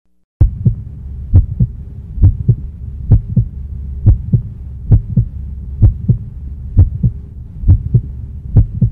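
Heartbeat sound effect: paired lub-dub thumps repeating about once every 0.9 seconds over a low steady drone, starting about half a second in after a moment of silence.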